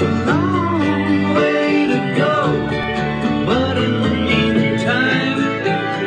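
Background country-style music: plucked string instruments over held bass notes, with a melody line that slides up and down in pitch.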